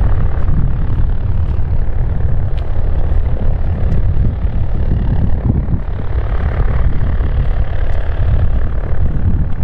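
Light trainer aircraft's four-cylinder piston engine and propeller running steadily at low taxi power, a steady low rumble.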